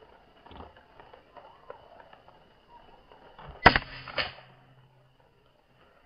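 A single air rifle shot about three and a half seconds in: a sharp crack with a brief ringing tail, followed by a smaller second crack about half a second later.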